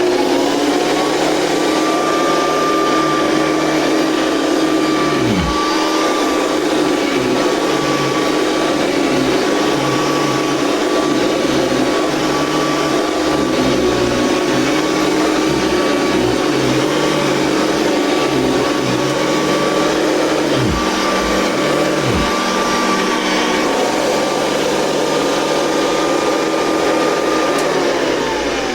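Hoover Convertible upright vacuum switched on, its motor spinning up to a steady high whine and running evenly. Near the end it is switched off and the whine falls as the motor winds down. This machine is said to need a new belt.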